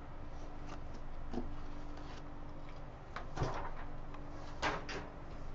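A few short knocks and rustles as a large paper flip chart is handled and taken down off a whiteboard ledge, over a faint steady hum.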